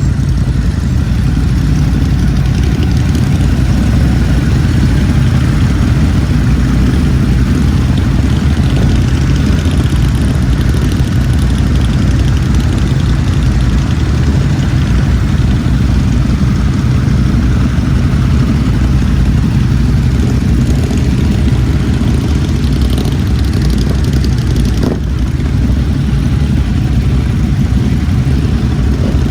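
Ducati Hypermotard's L-twin engine running steadily, its exhaust note low and even with no revving.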